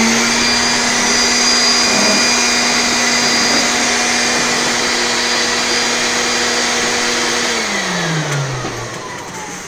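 Electric fan motor running at a steady hum with a rush of air. About eight seconds in it is switched off and spins down, its hum falling in pitch.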